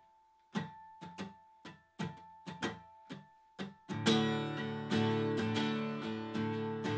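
Acoustic guitar played with a pick: short, separate light strokes about twice a second, then from about four seconds in full chords strummed louder and left ringing.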